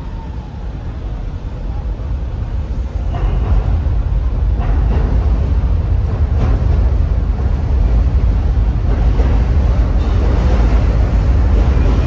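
Docklands Light Railway train running across the elevated viaduct overhead, a deep rumble that grows louder as it passes, with a few short clacks from the track, over steady road traffic.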